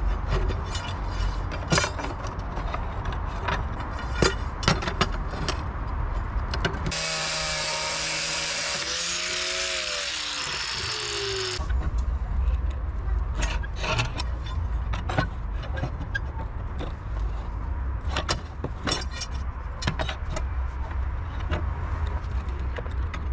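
Scattered metallic clicks and knocks of steel rebar and a steel pipe lever against a bending jig made of steel angle brackets on boards, over a steady low rumble. For about four seconds in the middle the sound switches abruptly to a hiss with a few falling tones.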